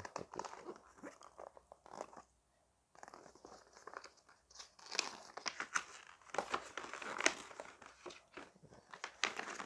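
A stiff paper user manual, folded like a poster, being unfolded and handled, crinkling and rustling in irregular crackles. There is a short break of silence a little after two seconds in.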